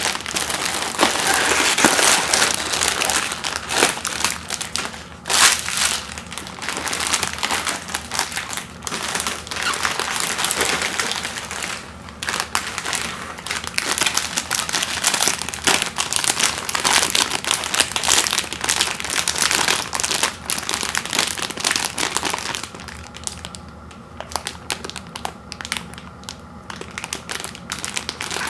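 Plastic instant-noodle packaging crinkling and crackling as it is handled and opened, with many sharp crackles. It goes quieter for the last few seconds.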